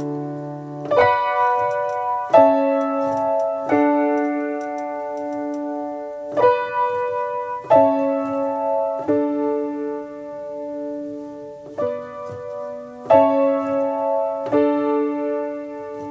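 Background music: slow, sustained piano chords, a new chord struck about every second and a half.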